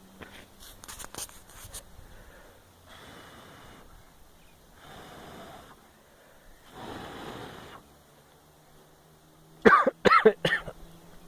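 A person blowing on a hard-to-light campfire of damp wood in three long breaths, then coughing sharply three or four times near the end.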